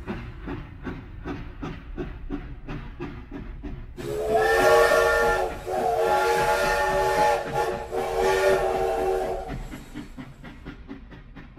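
Steam locomotive working, its exhaust chuffing in a rapid even beat of about four a second. From about four seconds in, it sounds a multi-note chime whistle for about five seconds, broken twice. The chuffing fades near the end.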